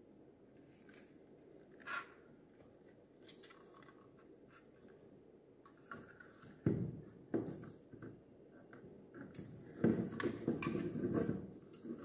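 Handling noise from a small plastic mini fan being turned over in the hands: a sharp click about two seconds in, then scattered knocks and rubbing of plastic, loudest in a cluster near the end as it is set down.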